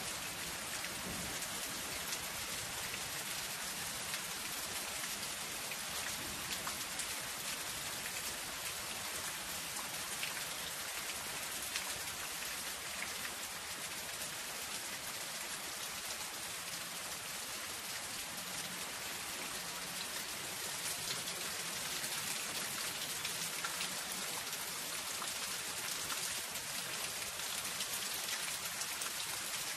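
Soft rain falling on zinc sheet roofing: a steady, even hiss of many drops, with scattered sharper taps of single drops.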